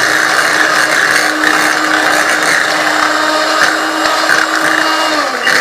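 Electric hand mixer running steadily, its beaters whirring through a thick cream cheese filling in a glass bowl. The motor's hum dips in pitch briefly near the end.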